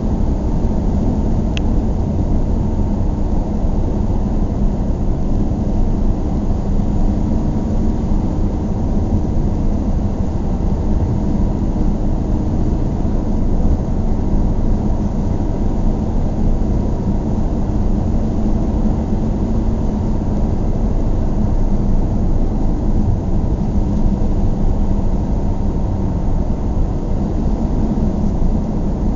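Steady low rumble of a moving vehicle, like road and engine noise heard from inside a car, with one short high tick about a second and a half in.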